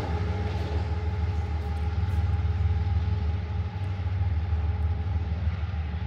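CSX freight train rumbling steadily as it rolls past and away, with a faint steady tone running over the low rumble.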